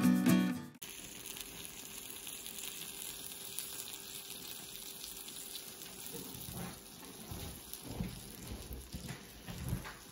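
Faint steady sizzling from a freshly baked deep dish pizza in its hot cast iron skillet, with a few soft knocks near the end. Guitar music cuts off in the first second.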